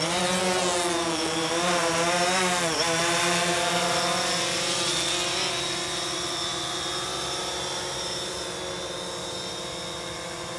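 DJI Phantom quadcopter's motors and propellers running, starting suddenly. The pitch wavers up and down for about three seconds, then holds steady and fades slightly.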